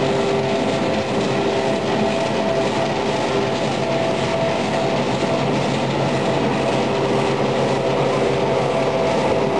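Wood pellet production line machinery running together: a loud, steady industrial din with a constant hum over dense mechanical noise.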